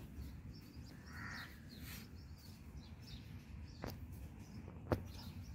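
Two sharp clicks as a screwdriver works at the plastic mount of a car's factory door speaker, the louder one near the end, over birds chirping.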